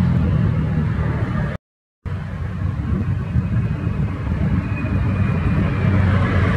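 Steady low engine-like rumble, as of a motor vehicle running nearby. The sound cuts out completely for about half a second near the second mark, then the rumble resumes.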